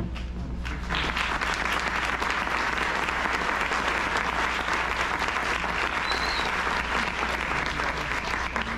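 Audience applauding, the clapping swelling in sharply about a second in, with a brief high whistle about six seconds in.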